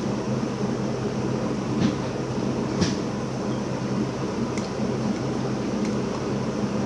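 Steady low mechanical hum, with a few light, sharp clicks of a metal spoon against a yogurt cup. The clearest click comes near the middle.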